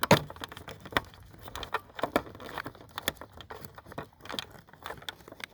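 Irregular clicks and taps of plastic tail-light bulb sockets and bulbs being handled and fitted.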